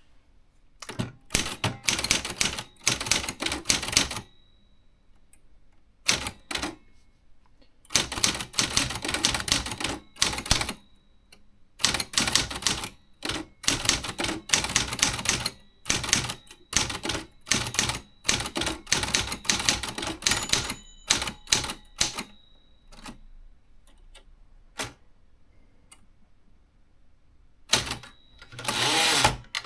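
Remington Quiet-Riter Eleven manual typewriter being typed on: rapid keystrokes in bursts of a second or two, with short pauses between them, and a longer continuous rattle near the end.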